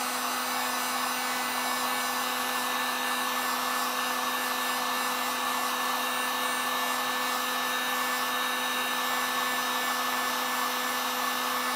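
Electric heat gun running steadily: a constant hum under an even rush of blown air.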